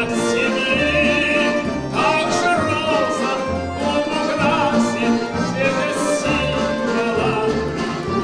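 Live music: a man singing with vibrato, backed by a folk instrumental ensemble with strings and a regular low bass pulse.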